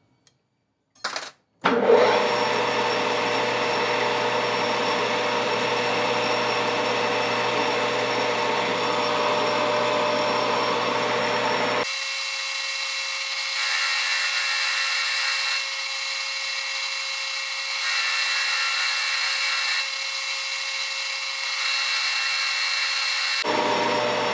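A metal lathe clicks on and starts up about two seconds in, then runs steadily while the tool turns down a metal bar. About halfway the sound turns thinner and swells and fades every couple of seconds, then fills out again near the end.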